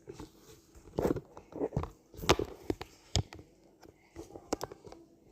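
Blind box packaging being handled and opened: irregular crinkling, ripping and sharp clicks, loudest about two seconds in.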